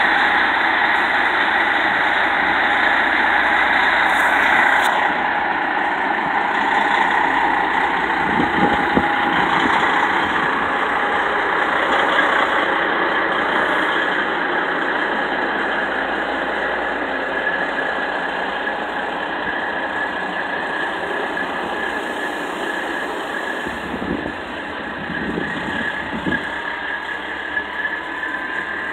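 Semi truck's diesel engine running as the tractor-trailer rolls slowly out of the wash bay, growing gradually quieter as it pulls away, with a steady high whine over the engine.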